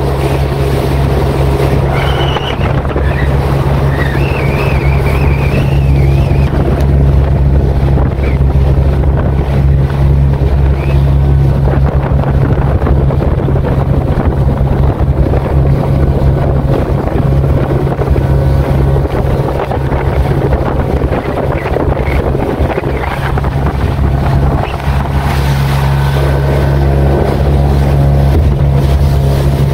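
Outboard motor on a small open boat running steadily at speed, a constant low drone, with wind noise on the microphone.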